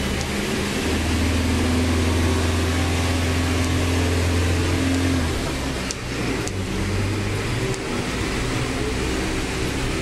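Mascarello Gran Via city bus's engine heard from inside the bus at the front, with cabin and road noise. It holds a strong steady drone for about four seconds, then eases off about halfway through, with a short dip and a couple of clicks near six seconds in, before running on more quietly.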